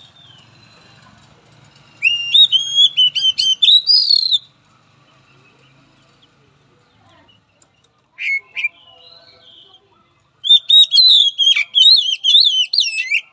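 Caged oriental magpie-robin singing: two bursts of quick, varied high whistled notes swinging up and down in pitch, each about two and a half seconds long, with a short call between them.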